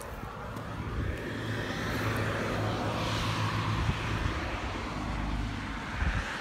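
A passing vehicle: a rushing noise that swells about halfway through and fades, over a steady low rumble.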